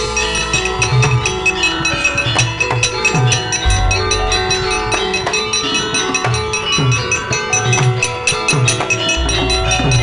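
Javanese gamelan playing as accompaniment to a wayang kulit shadow-puppet play. Bronze metallophones ring out steady notes over a hand drum whose strokes fall in pitch, and a deep gong comes in about four seconds in and again near the end.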